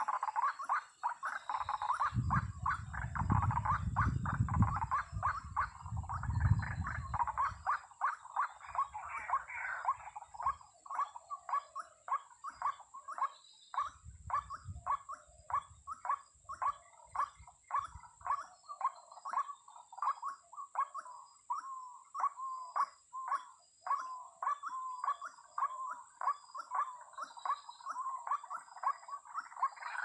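White-breasted waterhen calls: a long run of harsh, croaking 'kru-ak' notes, crowded together at first and settling to about two a second. A low rumble comes in about two seconds in and again midway.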